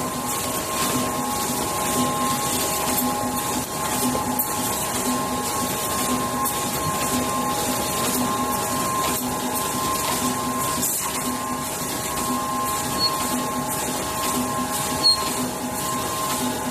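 LC-416T full-servo rotary tube screen printing machine running: a steady mechanical hum with a few held tones and a pulse about twice a second as it cycles. A single sharp tick near the end.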